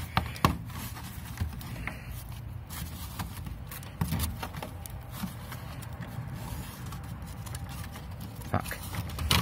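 Wire mesh scraping and clicking against corrugated plastic drainage pipe as it is curled and stuffed inside the pipe, with scattered sharp clicks over a low rumble.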